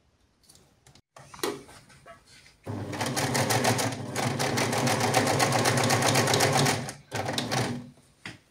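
Pfaff Threadmatic 1139 domestic sewing machine running in zigzag for about four seconds in a fast, even rhythm, stitching a button on with the feed dogs lowered. A few short handling clicks come before and after the run.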